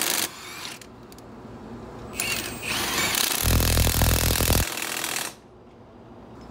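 Milwaukee M18 cordless impact wrench hammering on rusty bolts. A short burst ends just after the start, and a longer run follows from about two to five seconds in. The heavy hammering shows a stubborn, rust-seized bolt.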